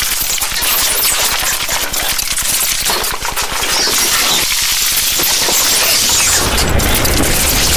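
Harsh experimental noise music from electronics and amplified objects: dense, rapid crackling and clicking over a high hiss, with a low hum coming in near the end.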